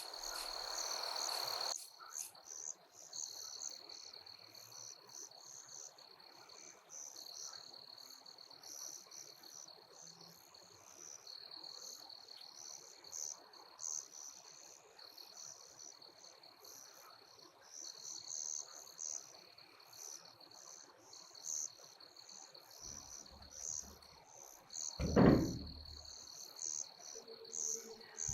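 Insects, likely crickets, chirping steadily: a continuous high trill with pulsing higher chirps over it. A hiss at the start lasts about two seconds, and a single short knock comes about 25 seconds in, louder than the chirping.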